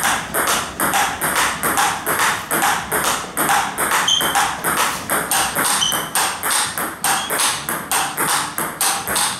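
A table tennis rally: the ball clicking off bats, one faced with Nittaku Fastarc G1 MAX rubber, and bouncing on the table. It is a quick, even run of sharp clicks, about three a second.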